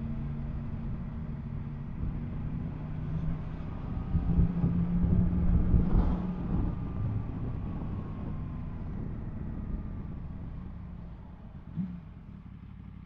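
Yamaha MT-10 SP's crossplane inline-four engine running steadily at road speed with air rushing past. It gets louder for a couple of seconds around five seconds in, then the engine note drops and quietens near the end.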